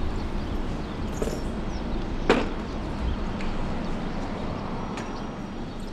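Steady low rumble of street traffic ambience through an open doorway, with a single sharp knock a little over two seconds in.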